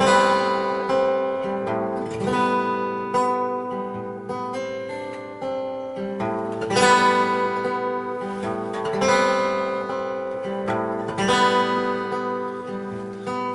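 Solo acoustic guitar played as a song intro: chords strummed and left to ring, with a strong accented strum about every two seconds.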